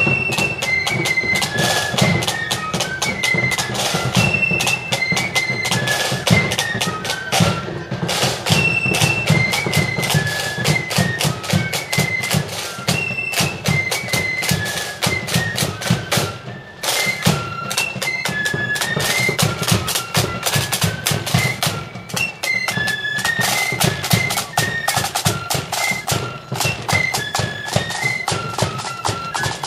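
Marching flute band playing: a high flute melody over rapid, dense side-drum strokes and a low drum beat.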